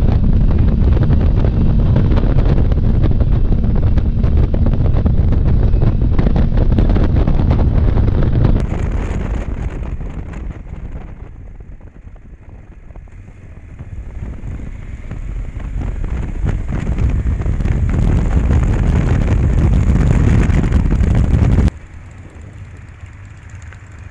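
Wind rushing over a motorcycle rider's camera microphone at speed, with the bike's engine running underneath. The noise eases off about ten seconds in, builds again, then drops off sharply a couple of seconds before the end.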